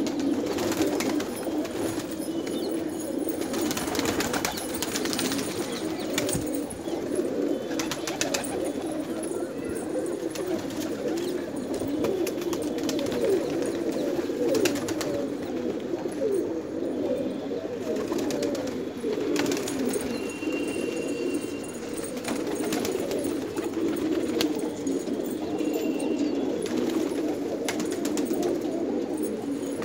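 A flock of domestic pigeons cooing together, many overlapping coos blending into one continuous low sound. Short clicks and taps are scattered through it.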